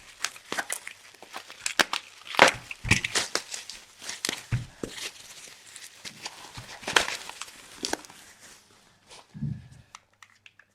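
Packing material rustling and crinkling with irregular clicks and knocks as plastic compact cameras are handled and lifted out of a box, thinning out near the end with a soft low thump.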